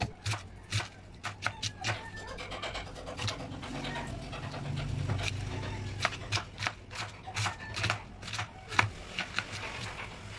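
Kitchen knife slicing cabbage on a wooden cutting board: irregular sharp strokes, with fewer of them around the middle, over a steady low hum.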